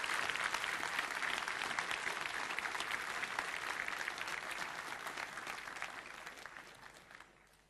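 Audience applauding: many people clapping together, dying away over the last two seconds or so.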